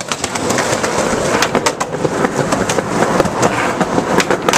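Skateboard wheels rolling on a concrete sidewalk: a steady rumble with a few sharp clicks scattered through it.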